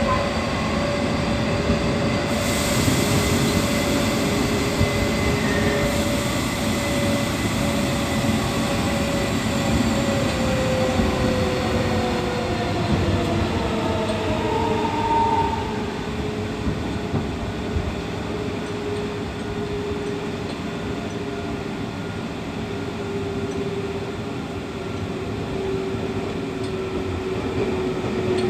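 Interior running noise of a Nagoya Municipal Subway 6000-series train, unrenovated car 6720: wheel and track rumble with the whine of its original Toshiba GTO-VVVF inverter and traction motors. Several steady tones begin to fall slowly in pitch after about ten seconds as the train slows.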